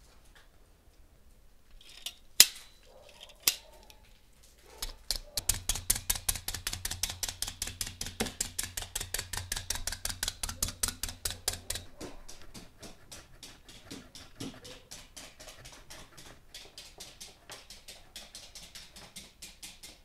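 Plunger-style needle meat tenderizer punched rapidly into raw beef on a wooden board: its steel needles and spring-loaded plastic base click and tap with each stroke. Two single knocks come first, then a fast, even run of strokes several a second, louder at first and softer in the second half.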